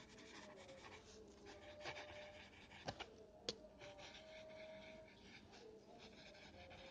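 Pencil scratching faintly on lined notebook paper as words are written by hand, with two short clicks about three seconds in.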